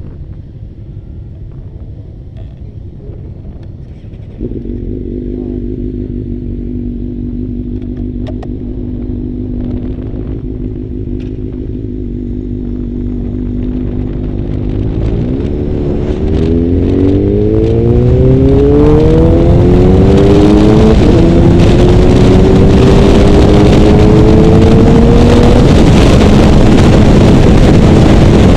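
Motorcycle engine idling low, stepping up to a steady higher note about four seconds in. From about fifteen seconds it revs up in a series of rising sweeps as the bike accelerates away, growing loud, with wind rush building on the helmet-mounted microphone.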